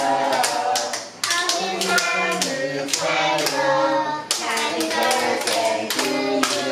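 A group of adults and children singing a birthday song together while clapping their hands in time, with short breaks between phrases.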